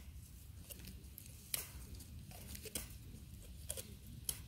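A goat biting and crunching a raw carrot: four sharp, faint crunches about a second apart.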